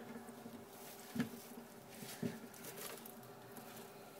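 Bearded dragon snapping up and crunching crickets: three faint, sudden crunches about a second apart, over a low steady hum.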